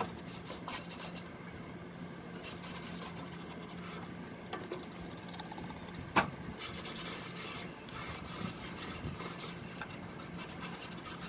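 Paper towels rubbing and scrubbing against the inside walls of a gas grill's cookbox, wiping out greasy residue. There is one sharp knock about six seconds in.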